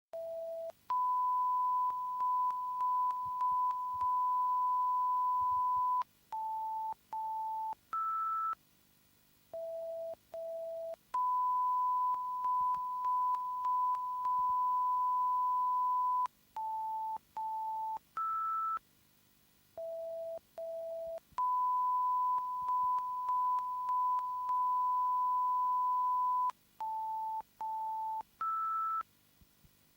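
Broadcast line-up test tones for a 5.1 surround sound check. A steady 1 kHz tone lasts about five seconds, then come two short lower beeps, one short higher beep, a brief silence and two short low beeps. The sequence loops about every ten seconds.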